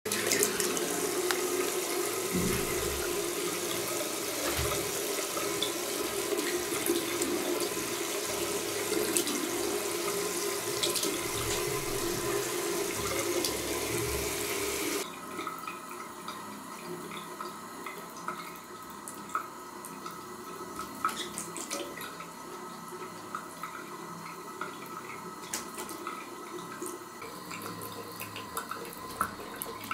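Bidet tap running, a thin stream of water splashing into the ceramic bowl and drain, with a cat's paws and head interrupting the stream. About halfway through the sound suddenly drops quieter, leaving a softer trickle with small scattered drips and splashes.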